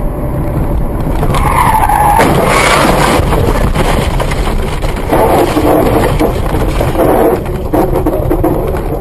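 A car skidding off the road and running over rough grass, heard from inside the car: a short tyre squeal about a second and a half in, then loud, rough tyre and engine noise.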